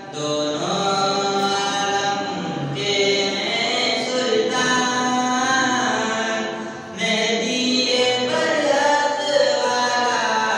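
Solo young male voice chanting a naat unaccompanied, in long held melodic phrases with short breaks between them.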